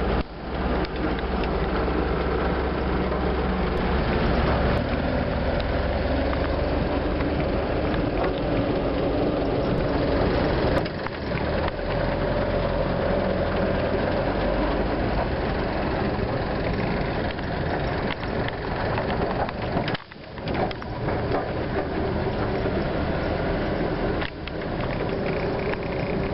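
Engine and tyre noise of an ex-army vehicle driving on dirt and gravel roads, heard from on board as a steady drone, with a few short breaks.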